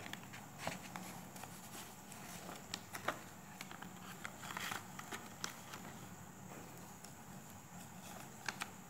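Handling of a handmade paper and card surprise box: scattered light taps, clicks and a brief rustle, with a faint steady high whine underneath.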